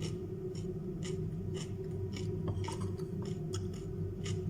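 Crunchy chewing of raw vegetables, about two crisp crunches a second, over a steady low hum.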